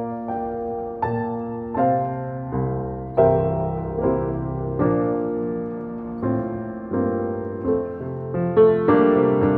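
Slow piano music: chords struck about once a second and left to ring and fade, with a few quicker notes near the end.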